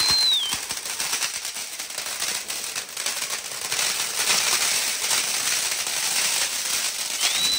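Firecrackers crackling rapidly and continuously. A high whistle rises and falls briefly at the start and again near the end.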